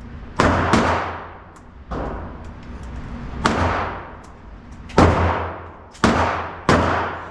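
Gunfire: about seven shots at uneven intervals, each a sharp crack with a long ringing decay, one of them fainter than the rest.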